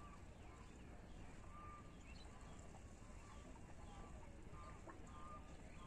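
Near silence: faint open-air ambience with short, faint bird calls and chirps scattered through it.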